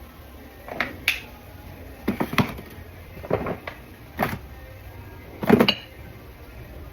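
A spoon knocking and clinking against spice containers and a cooking pot while ground spices are spooned in: about six short, sharp knocks, the loudest about five and a half seconds in.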